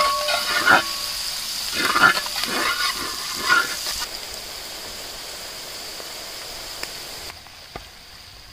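Metal spatula scraping and stirring sliced onions, green chillies, ginger and garlic in sizzling coconut oil in a wide metal pan, with several scraping strokes in the first four seconds. After that only a steady sizzle remains, fainter near the end. The aromatics are being fried until light brown.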